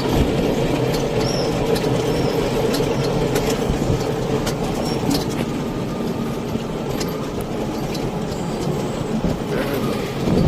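Steady rumbling noise of a vehicle travelling along a road, with scattered faint clicks and rattles.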